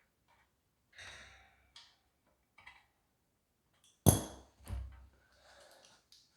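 Adjustable wrench working the chain tensioner nut on an exercise bike's steel frame: a few faint clicks and scrapes, then two sharp metal knocks just after four seconds in, the first the loudest.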